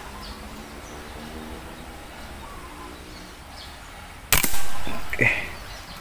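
A single sharp air rifle shot about four seconds in, with a short ringing tail, after a few seconds of faint steady hum.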